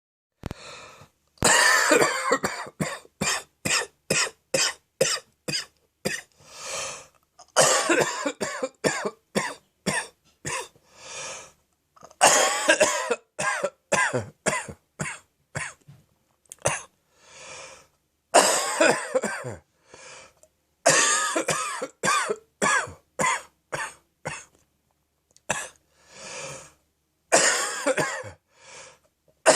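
A deep, throaty morning coughing fit, wet with catarrh from throat phlegm and acid reflux. It comes in about six bouts, each opening with one strong cough and followed by a quick run of shorter coughs, with short pauses between bouts.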